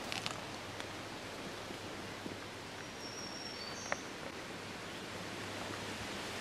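Quiet woodland ambience: a steady hiss of outdoor background noise, with a brief high bird chirp about three seconds in and a single faint click just before four seconds.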